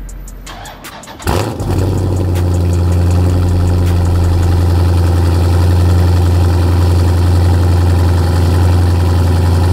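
Dodge Charger Scat Pack's 392 (6.4-litre) HEMI V8 starting through its exhaust. It cranks and catches about a second in, then settles into a steady idle.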